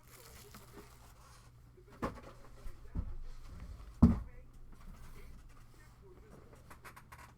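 Trading card packs and cards being handled on a table: paper and foil rustling, with a few sharp knocks, the loudest about four seconds in.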